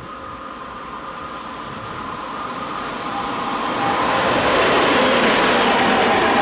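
A train approaching, its running noise growing steadily louder for about four seconds and then holding at full level as it comes by, with a faint steady whine on top.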